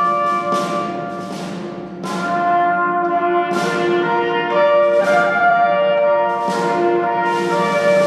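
Orchestral music led by brass, playing slow sustained chords that change every second or so, with a sharp attack at each new chord.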